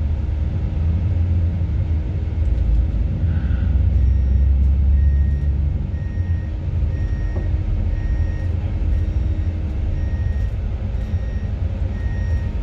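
Low rumble of a tour bus's engine and ride from inside, as the bus slows and turns. From about four seconds in, a short electronic beep repeats steadily, about three every two seconds.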